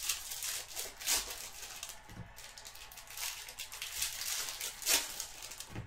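Baseball trading cards and their pack wrappers being handled close to the microphone: a run of rustling and crinkling with a few sharper brief scrapes.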